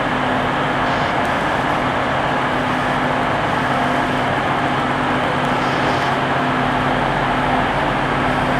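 Class 175 diesel multiple unit standing with its engines idling: a steady, unchanging diesel drone with a low hum.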